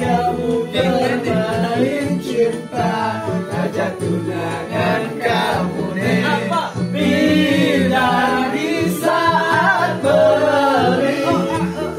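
Several men singing together over music with a steady low accompaniment.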